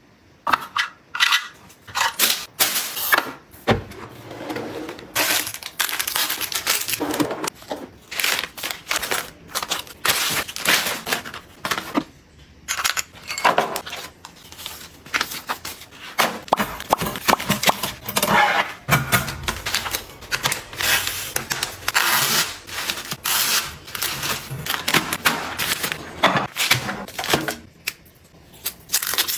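Close-up handling sounds of cosmetics and packaging: plastic tubes, cases and containers clicking and tapping as they are picked up and dropped into bins, mixed with rustling of plastic and cardboard. A quick, irregular string of clicks and rustles with only short gaps.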